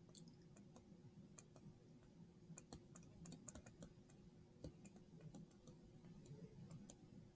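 Faint, irregular light clicks and taps of a stylus on a tablet screen during handwriting, over a faint steady hum.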